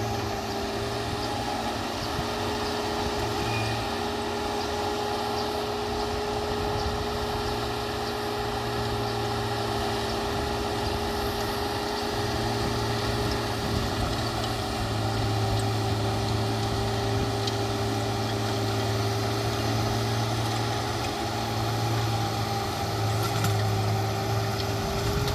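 Farm tractor engine running steadily at a constant pitch while driving a PTO-powered two-stage harrow through a paddy field.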